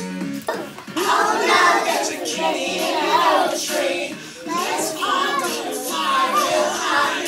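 A group of young children singing together along with a song, several voices at once.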